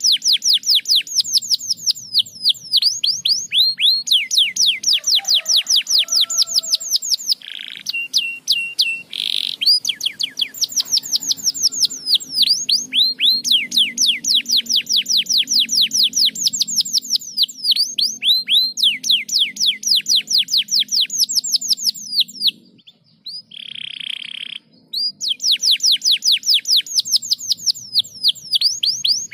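Domestic canary singing: long rapid trills of repeated down-slurred high notes, broken by a few short steady whistled notes and a brief pause about three-quarters of the way through.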